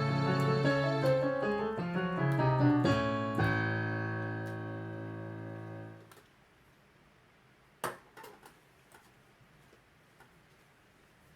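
Solo piano playing the last phrase of an accompaniment, ending on a chord that is held and dies away, cut off at about six seconds. The rest is near silence with a few faint clicks.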